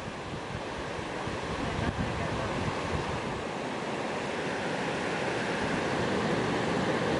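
Ocean surf: a steady rush of breaking waves and moving water, growing slowly louder.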